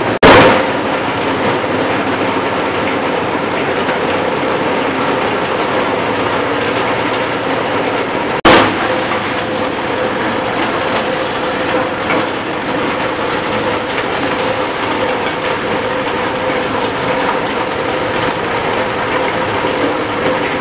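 Corn sheller running, a steady mechanical drone and rattle with a held tone. A sudden loud click comes just after the start and another about eight and a half seconds in, where the recording is cut.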